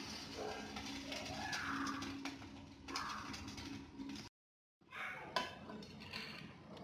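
A glass lid set onto a frying pan with a clink near the start, over a steady low hum, with short wavering calls in the background. After a brief dropout, boiled rice is tipped from a steel pot into another pot with a loose rustle and clicks.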